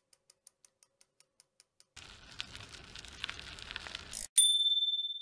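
Logo sound effect of a bicycle wheel: slow even ticking of the freewheel, about five clicks a second, then a whirring hiss as the wheel spins up that cuts off suddenly, followed by one bright bell ding that rings out over about a second and a half.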